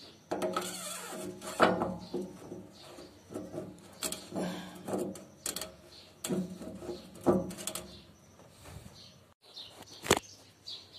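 Knocks, clicks and scrapes of a hydraulic filter element being pushed into the tank opening and the filter cap fitted, with a sharp click about ten seconds in. Low pitched calls that rise and fall repeat in short spells in the background.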